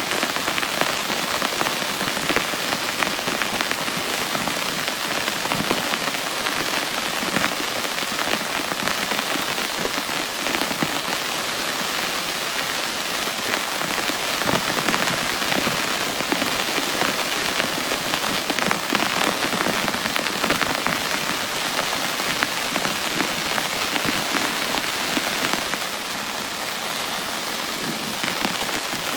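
Heavy rain falling steadily, a dense hiss of countless drops hitting a surface, easing very slightly near the end.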